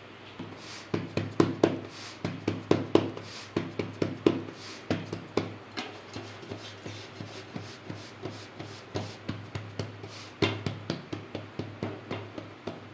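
Hands patting a ball of jowar (sorghum) flour dough flat into a bhakri on a flour-dusted surface, turning it between pats. A long series of soft slaps, about two or three a second.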